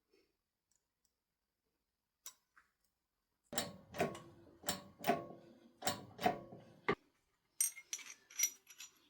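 A run of about seven light metallic taps over roughly three seconds, each with a short ring, followed near the end by a few thinner, higher clinks of small metal parts.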